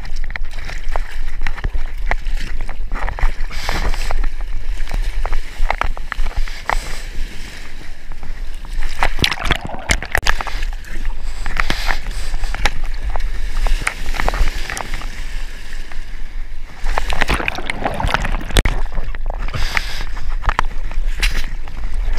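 Surfer paddling prone on a surfboard: hands stroking through the sea and water sloshing and splashing close to a mouth-mounted GoPro, an irregular run of splashes over a steady low rumble.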